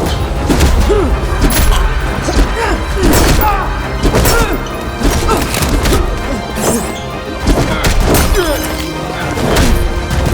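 Action-film score with repeated fight impact sounds, punches and body blows landing about once a second over the music.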